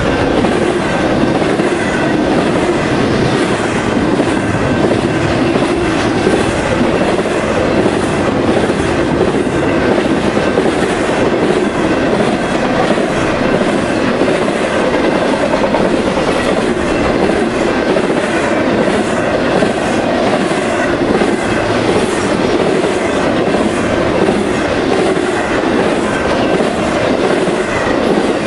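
Intermodal freight train cars, double-stack containers and trailers on flatcars, rolling past at speed: a loud, steady rush and rumble of steel wheels on rail with a regular clickety-clack as the wheels cross rail joints.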